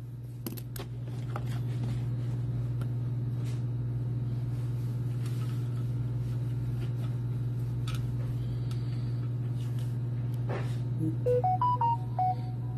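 A steady low hum, then about eleven seconds in a quick run of short electronic beeps at changing pitches, lasting about a second.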